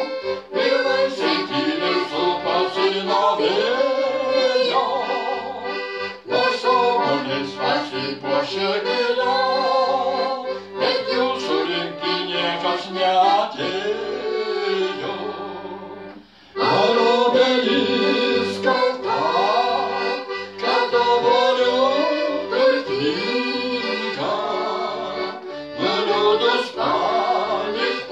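Piano accordion playing a song, with a man's voice and a woman's voice singing it as a duet. The music breaks off briefly a little past halfway, then starts again.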